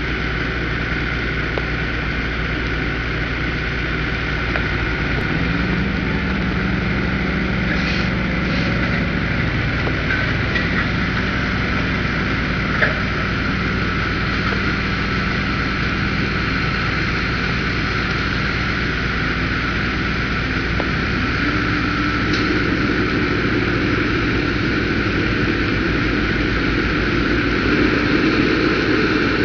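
Heavy diesel engines of a dump truck and asphalt paver running steadily while the trailer's hydraulic hoist raises the dump bed to tip asphalt. The engine note steps up about five seconds in and again about twenty-one seconds in.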